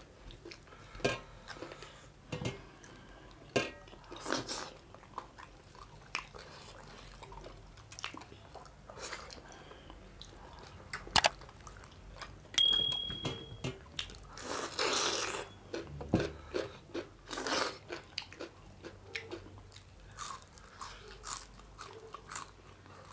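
Close-up eating sounds: chewing and crunching of fried fish and dhido eaten by hand, with scattered small clicks and a louder noisy burst about two-thirds of the way through. A brief high electronic tone sounds a little past halfway.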